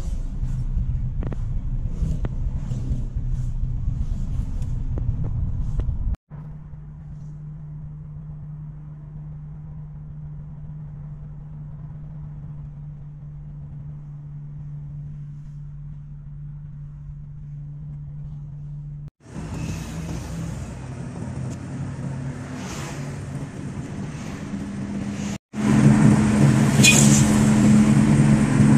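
Engine hum and road noise inside a moving car. The sound changes abruptly at several cuts: a steady, quieter hum through the middle stretch and louder road noise near the end.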